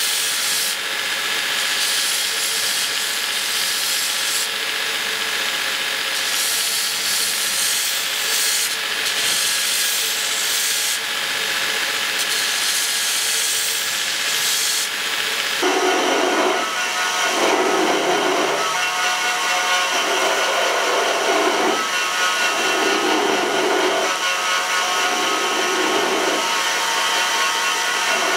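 Belt grinder running with steel being ground against the belt. About halfway through, the grinding changes to a series of separate strokes, roughly one every two seconds.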